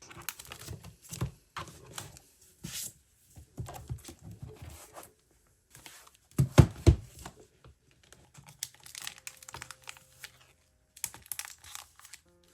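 Photocards and their plastic sleeves being handled: irregular taps, clicks and crinkling, with a pair of louder knocks about six and a half seconds in.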